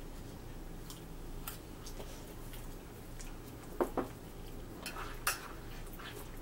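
Metal spoons scraping and clinking in bowls of grits and oatmeal: a few scattered clinks, the loudest just before four seconds in, over a faint low hum.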